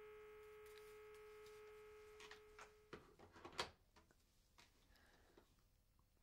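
Steady telephone line tone from a corded landline handset after the call ends, cut off sharply about three seconds in by the click of the hook switch, followed by the plastic clatter and knock of the handset being set down in its cradle.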